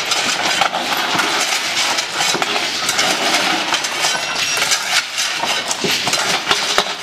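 Shovels scraping and lumps of hard material clinking and knocking as a heap is shovelled on a steel trailer bed, with many small knocks and clinks running together.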